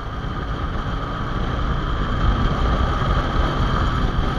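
Motorcycle underway: steady engine and exhaust drone mixed with wind rush on the microphone, building slightly in loudness partway through.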